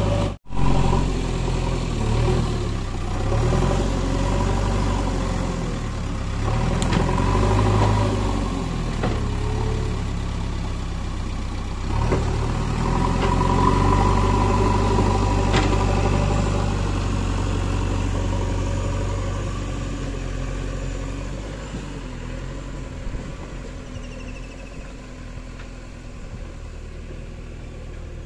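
JCB backhoe loader's diesel engine running close by, its pitch rising and falling as the loader works the soil, and growing quieter over the last several seconds.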